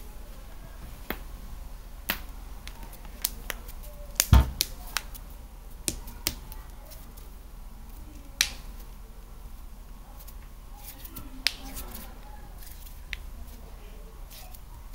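Scattered sharp clicks and taps at irregular intervals over a steady low hum, the loudest a heavier knock about four seconds in.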